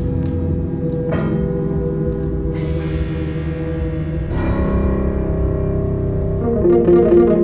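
Live ambient electronic music: layered held tones, with a few struck notes that ring out and fade over them, and a quick pulsing figure coming in near the end.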